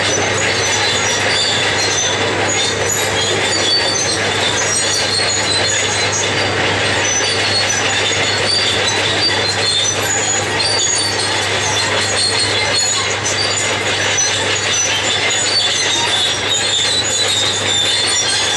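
Caterpillar D6 crawler dozer working: its diesel engine runs steadily under load while the steel tracks clank and squeal in short, high-pitched bursts, over and over.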